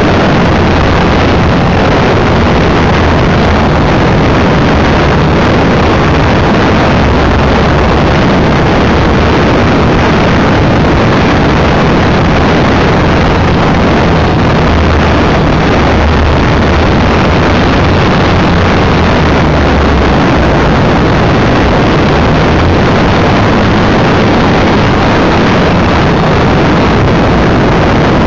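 Electric motor and propeller of an EasyGlider radio-control motor glider running steadily under power, heard from an onboard camera together with loud wind rush over the microphone.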